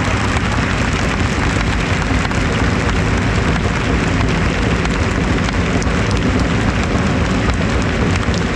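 Steady, dense din from a large stadium crowd of football supporters.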